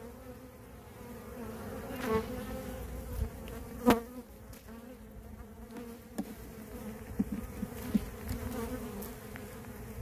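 Steady hum of a large honeybee colony swarming around an opened hive, the bees stirred up by the opening. A few short sharp knocks sound through it, the loudest about four seconds in.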